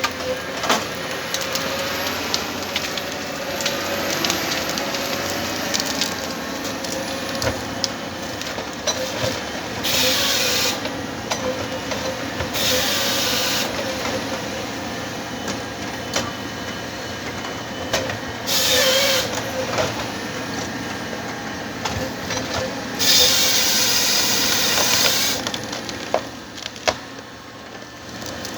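Komatsu 931 XC forestry harvester at work: the machine runs steadily with a held engine tone and knocks from the C144 head. Four loud hissing bursts come through, which fit the head's saw cutting logs; the last and longest lasts a couple of seconds near the end.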